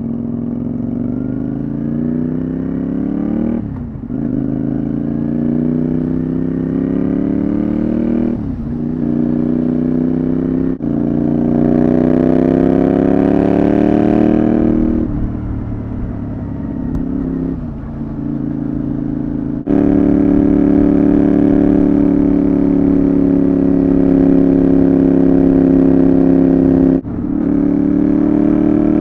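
Honda VTR250's 250 cc V-twin running through a Moriwaki full exhaust system, riding under way: the engine note climbs in pitch several times with short breaks between, as it is shifted up through the gears. About two-thirds of the way through it settles into a steady, loud cruise, with one more brief break near the end.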